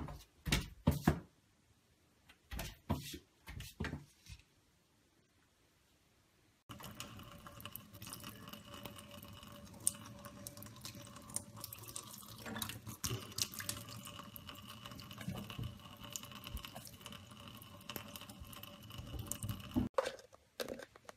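Tap water running in a thin stream into a stainless steel sink, steady for about thirteen seconds. Before it, in the first few seconds, a handful of sharp knocks, the loudest sounds here.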